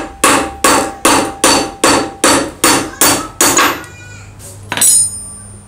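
Hammer striking metal: about ten quick, evenly paced blows, then a pause and one last blow that leaves a ringing tone.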